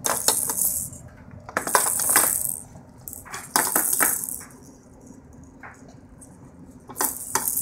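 Beads rattling inside the plastic toys of a baby activity center as an infant grabs and shakes them. The rattling comes in several short bursts, with a quiet stretch of a couple of seconds before a last burst near the end.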